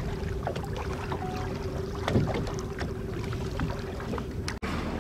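Wind on the microphone and water lapping against a small boat, under a steady low hum. A brief louder rush of noise comes about two seconds in, and the sound cuts out for an instant near the end.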